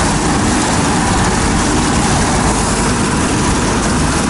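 Motor of a bangka outrigger boat running steadily under way, under a loud rush of wind and water as it crosses choppy waves.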